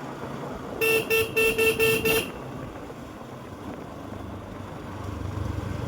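A vehicle horn beeping about six times in a rapid run, roughly four beeps a second, about a second in. A low motorcycle engine and road rumble runs underneath and grows louder near the end.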